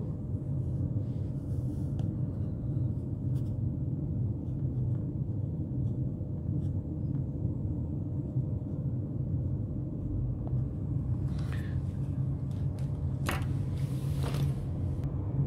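A steady low hum, with a few faint clicks and rustles near the end.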